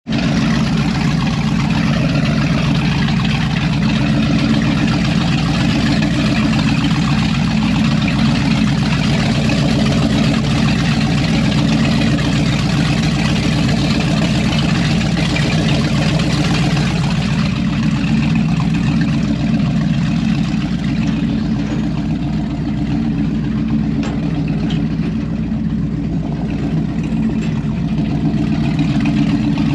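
A Formula speed boat's inboard engine idling steadily, its exhaust running out through the transom outlets with exhaust water splashing beneath them.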